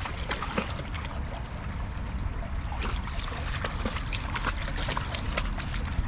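A dog drinking at the water's edge: a run of small, irregular lapping splashes.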